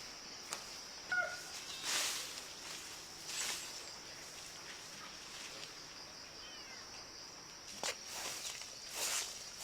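Rural outdoor ambience: a steady high-pitched hum with a few brief rustles, and a short chirp about a second in.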